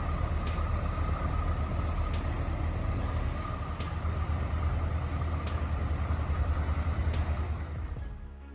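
Heavy diesel log truck's engine running under load: a deep, steady rumble with a faint whine above it and scattered sharp clicks. It cuts off near the end.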